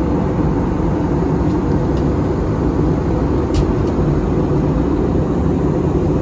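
Steady rumble of engines and airflow heard from inside an Airbus A320's cabin during descent, with a faint click about three and a half seconds in.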